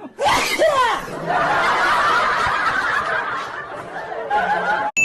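Loud laughter, setting in abruptly a fraction of a second in with a burst of voiced, pitch-bending sounds, then carrying on as a dense, noisy stretch of snickering until it cuts off near the end.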